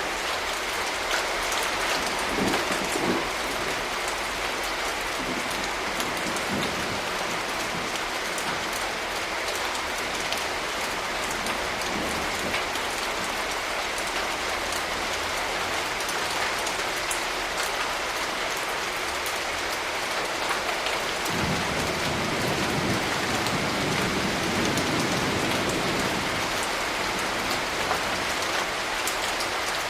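Steady rain falling, with a low rumble of distant thunder rolling in about two-thirds of the way through and lasting several seconds.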